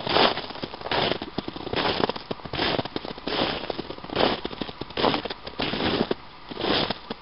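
Footsteps crunching in snow at a steady walking pace, a crisp crunch about every 0.8 seconds.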